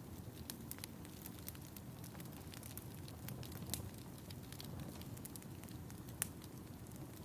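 Wood fire burning with a soft low rumble and scattered sharp crackles and pops, two louder pops near the middle and toward the end.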